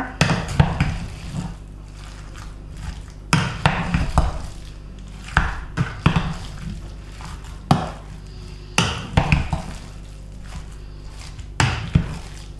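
A utensil mixing a thick tofu and fried-onion pierogi filling in a bowl: irregular knocks and scrapes against the bowl, coming in clusters a second or two apart.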